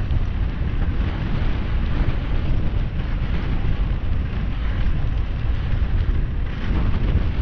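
Wind buffeting the microphone of a camera on a moving bicycle: a steady, loud low rumble with a rushing hiss.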